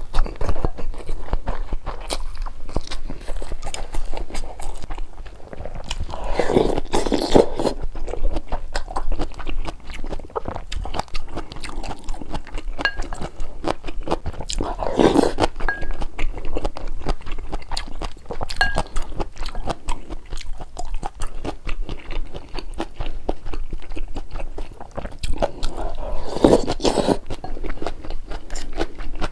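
Close-miked chewing and biting of food, a steady run of crunchy, wet mouth clicks, with louder bursts of eating noise about 7, 15 and 26 seconds in.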